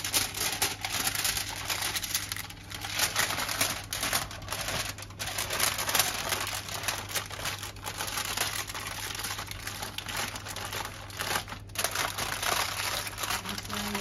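Aluminium foil crinkling and crackling as gloved hands fold and press it around a seasoned fish to close a foil parcel. The crackle is nearly continuous, with a few brief pauses.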